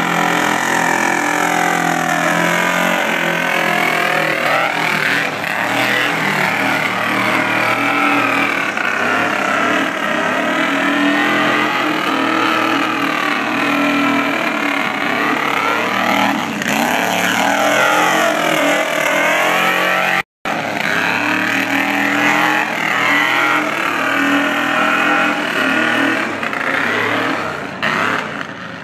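Subaru Brat's flat-four engine revving hard over and over, its pitch rising and falling as the pickup powers through deep mud. The sound cuts out for a split second about two-thirds of the way through and fades a little near the end.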